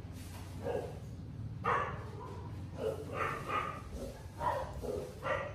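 A baby monkey giving a series of short high calls, about eight in all, over a steady low hum.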